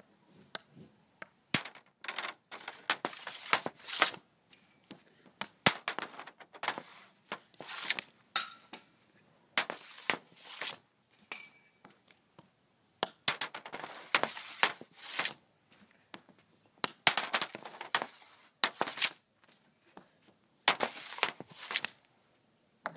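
Street hockey shots off a plastic shooting pad: a stick blade scraping and slapping across the pad, with sharp cracks as balls are struck. The shots come in about six bursts of a few seconds each, with short pauses between.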